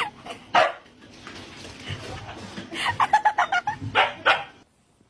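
A dog barking and yipping in short separate calls, with a quick run of yips about three seconds in and two louder barks near the end.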